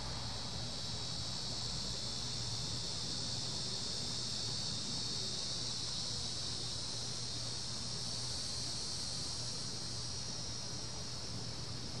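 Cicadas in chorus, a continuous high-pitched buzz that swells slightly in the middle and eases a little near the end, over a low steady hum.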